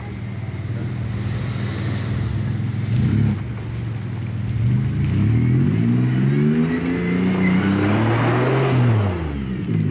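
Early Toyota 4Runner's engine pulling under load as it climbs out of a creek through a muddy rut: a brief rev about three seconds in, then the revs climb in the second half and drop off near the end.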